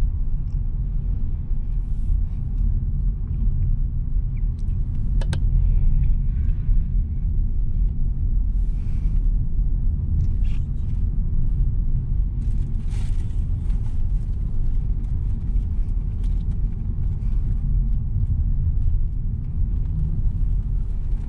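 Steady low rumble of road and engine noise inside the cabin of a 2022 Mitsubishi Xpander Ultimate CVT driving along at a constant pace.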